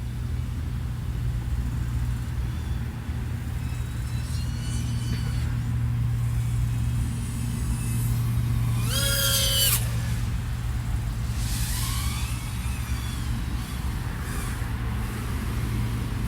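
Small 3.5-inch FPV quadcopter's brushless motors (XING 1504 3100KV) and propellers running, a steady low hum with whining pitches that rise and fall as the throttle changes. The loudest throttle surge comes about nine seconds in.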